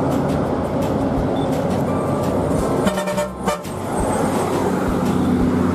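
Bus horn sounding in long held blasts over road noise, breaking off briefly about three seconds in and resuming at a different pitch.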